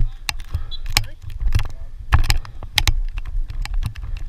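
Irregular sharp clacks and knocks of lacrosse sticks and ball in play, over a steady low rumble, with faint voices.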